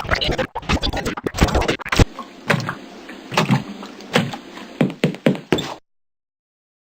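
A rapid, irregular series of knocks and clicks over a hiss, cutting off suddenly to silence near the end.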